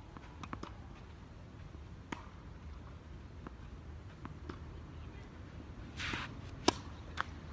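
Tennis racket striking the ball on a serve: one sharp crack near the end, the loudest sound, followed about half a second later by a smaller knock. A few faint scattered clicks come earlier.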